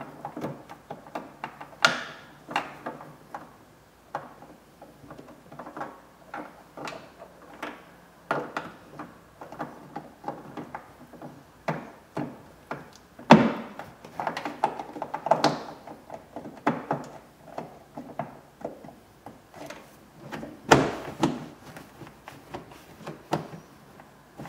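Hands and tools working in a car trunk: irregular knocks, clicks and rustles as the taillight's mounting nuts are snugged up and the carpeted trunk side trim is pressed back into place. A few louder thunks come near the start, about midway and toward the end.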